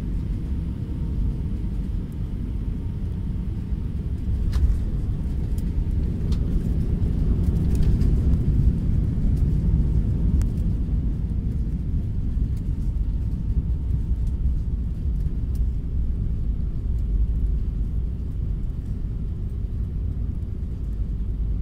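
Airbus A319 cabin noise on landing: a thump about five seconds in as the wheels touch down, then the deep rumble of the landing roll, which swells for several seconds and eases off toward the end.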